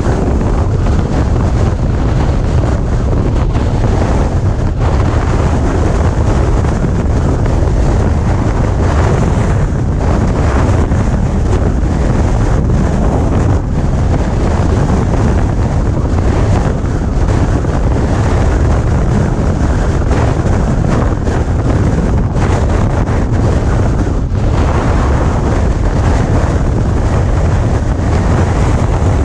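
Hurricane-force wind blasting across the microphone: a loud, steady rumble of wind noise that never lets up.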